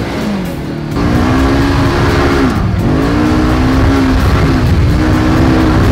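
Polaris RZR side-by-side engine running hard on a dirt trail, heard from the open cab. Its pitch climbs and sags with the throttle, easing off three times, near the start, midway and about three-quarters through.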